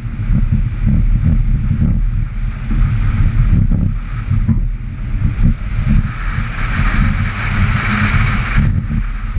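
Mazda RX-8's two-rotor rotary engine driven hard through an autocross slalom, its note rising and falling as the throttle is worked between cones. A band of hiss from air rushing past the car comes in during the faster stretch in the second half and cuts off shortly before the end.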